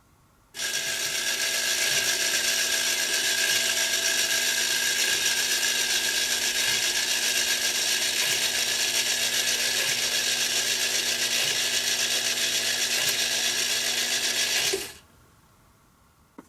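TV antenna rotor's gear motor running steadily as it turns the antenna mast. It starts about half a second in and stops abruptly about fourteen seconds later.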